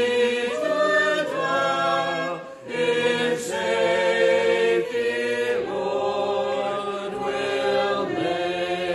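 Congregation singing a metrical psalm unaccompanied, in slow, long-held notes, with a brief breath gap about two and a half seconds in.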